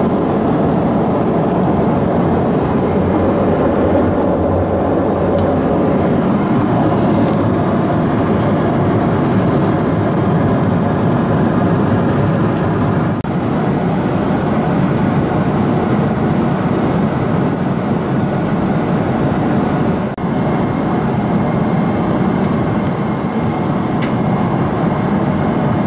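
Steady rushing noise inside the cabin of a Boeing 777-300ER in flight: airflow and engine noise heard from a window seat.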